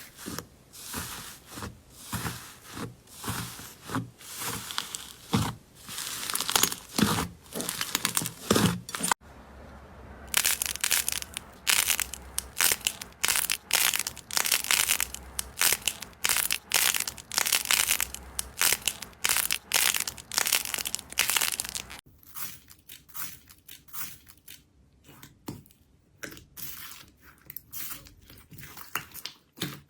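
Slime being squeezed and pulled by hand, crunching and crackling in repeated strokes. It changes abruptly twice: about a third of the way in it becomes a dense, louder crackle, and about three quarters of the way through it turns quieter and sparser.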